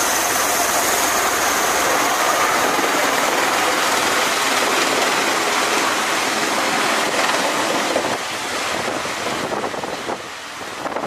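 CMV-22B Osprey tiltrotor's turboshaft engines and proprotors running, a loud steady rushing noise with a high whine that fades in the first couple of seconds. The noise eases and turns rougher after about eight seconds.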